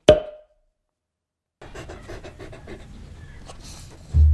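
A sharp pop with a brief ring, a second of silence, then a Samoyed dog panting softly with small mouth clicks. Near the end comes a low thud as the plastic punnet of raspberries is set down on the wooden board in front of it.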